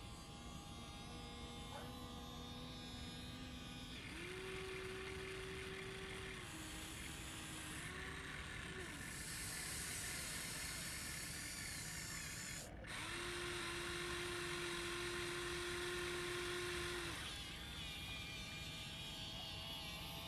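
Electric motors of a Huina radio-controlled excavator whining at steady pitches that step up and down as the boom, arm and bucket move, over a continuous rough grinding noise. The sound breaks off for a moment about two-thirds of the way through.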